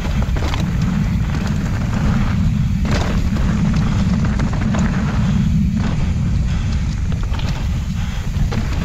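Mountain bike riding a trail: a steady low rumble of wind buffeting and tyre noise on the camera's microphone. Sharp rattles of the bike going over bumps come about three seconds in and again near six seconds.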